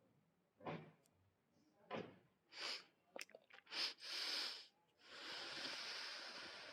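A person sniffing and snorting through the nose: a string of short, sharp sniffs, then one long noisy breath through the nose starting about five seconds in.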